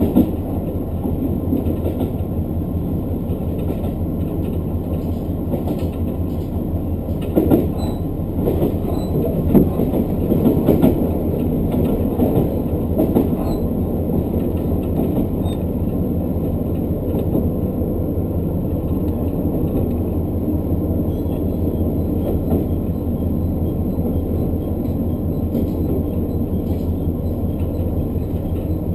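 Local diesel train on the Hakodate Main Line running along the track, heard from inside the car: a steady low rumble of engine and wheels on rail, with a few louder knocks and rattles around 7 to 11 seconds in.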